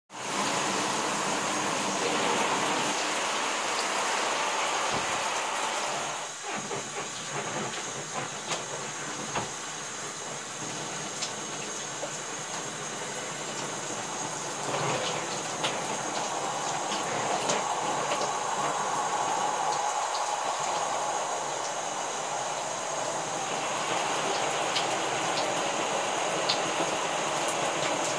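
Shower running steadily, water spraying and splashing onto soaked denim jeans and the bathtub, with a few small knocks; the sound dulls a little about six seconds in.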